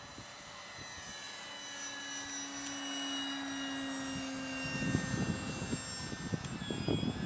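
Electric brushless motor and propeller of a Durafly Tundra RC bush plane whining in flight, a steady high-pitched drone that grows louder as the plane comes closer.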